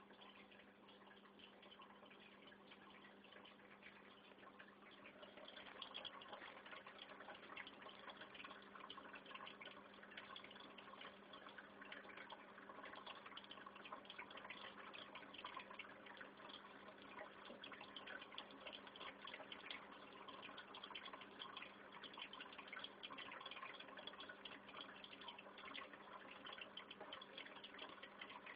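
Faint aquarium filter running: a steady low hum with a fine crackle of bubbling, trickling water, a little louder from about six seconds in.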